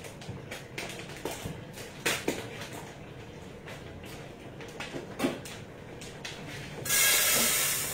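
Kitchen handling sounds: scattered light knocks and clicks of dishes and containers on the counter. About seven seconds in comes a loud rushing hiss lasting about a second.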